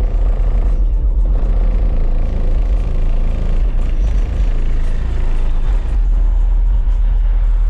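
Nine Sundown Audio X8 8-inch subwoofers in a Chevy Trailblazer, driven by a Sound Digital 8800 amplifier, playing very loud, deep bass, heard from outside the vehicle.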